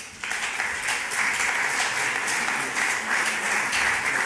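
Audience applauding, starting abruptly a moment in and then going on steadily.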